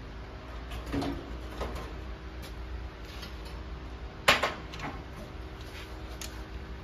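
Handling noise at a steel welding table: light metal clicks and knocks as gloves go on and the electrode holder is picked up, with one sharp clank about four seconds in, over a steady low hum.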